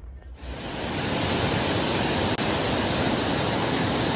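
Water pouring over a wide fountain ledge into a pool: a steady rushing hiss that swells in over the first second and then holds level.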